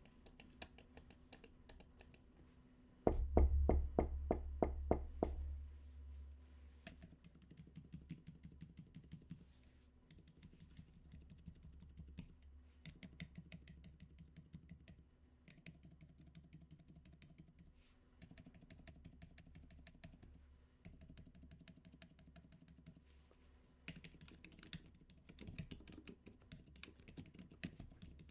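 Typing on a mechanical keyboard with Outemu XCJZ Dopamine key switches (MiniAxe keyboard): a steady patter of rapid keystroke clicks. About three seconds in comes a louder, deeper run of keystrokes lasting a couple of seconds.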